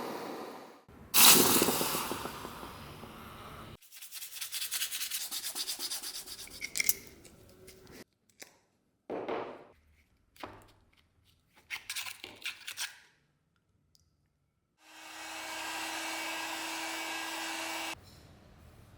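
Rubbing and sanding strokes on a workpiece, heard in several short separate takes. Near the end comes a steady hiss lasting about three seconds, with a constant low hum under it.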